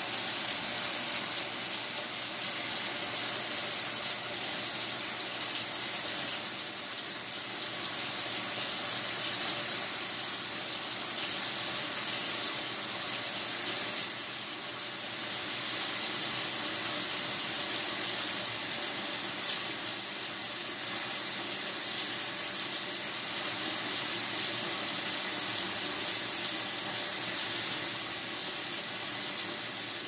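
Water spraying from the fill inlet into the tub of a GE belt-drive top-load washing machine during the fill stage of the wash cycle: a steady splashing rush.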